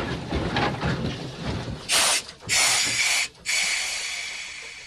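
Streetcar rattling along the rails, then air hissing out in three loud bursts about two seconds in, the last one trailing off.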